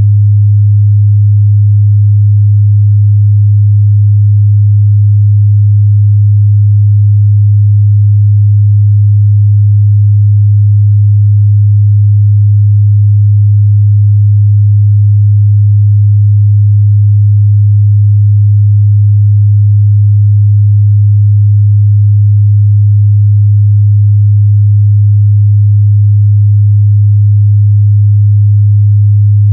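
A steady, loud 103 Hz sine-wave test tone, a single low hum held without change.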